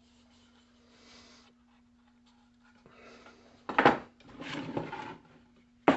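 A sharp knock a little under four seconds in, then about a second of scraping, and another sharp knock near the end, like objects being handled and set down on a bench, over a faint steady low hum.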